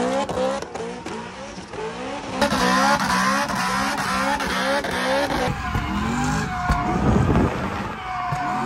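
BMW E90 M3's V8 revved up again and again in quick rising pulls, two or three a second, while the car spins donuts, with the tyres scrubbing and squealing; a long tyre squeal near the end.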